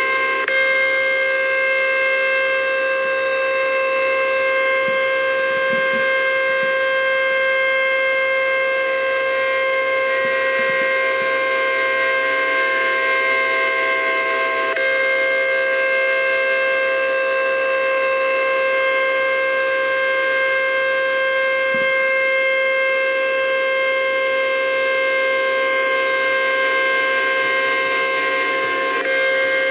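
Outdoor warning siren sounding a steady tone at constant pitch, with no rise or fall.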